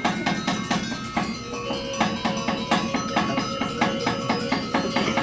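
Balinese gamelan music: metallophone bars struck in a quick, even pulse of about four to five strokes a second, with their notes ringing on over one another.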